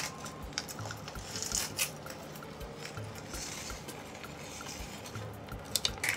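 Dried thyme rustling as it is shaken from a small plastic sachet onto meat in a steel pot, with crisp crinkling clicks of the plastic packet near the end. Faint background music with a slow beat runs underneath.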